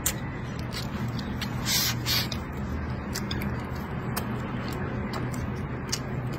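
Close-up chewing and mouth sounds of a man eating rice with braised pork belly and greens: frequent small wet clicks and smacks, with two brief hissy sounds about two seconds in.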